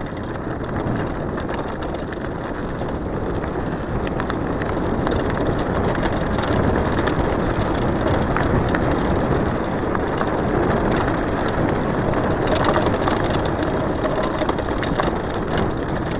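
Mountain bike riding over a rocky gravel dirt track: a steady rushing rumble of tyres rolling on loose stones and air moving past, with scattered clicks and rattles from stones and the bike.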